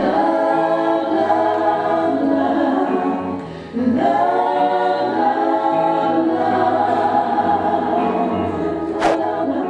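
A choir singing held chords. The sound drops away briefly just under four seconds in and comes back, and there is a single sharp click near the end.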